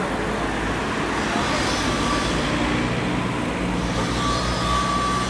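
Road traffic and vehicle engines running steadily, with indistinct voices in the background.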